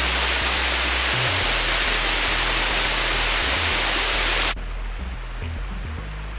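Waterfall rushing, a steady, loud noise, cut off abruptly about four and a half seconds in; background music follows.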